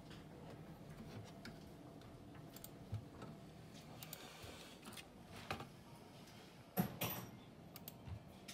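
A few scattered light clicks and taps of small tools and parts handled on a repair workbench, the sharpest late on, over a faint steady hum.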